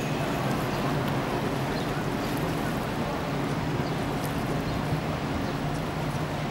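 Container ship's engines running as it passes, a steady low hum under a haze of wind and water noise.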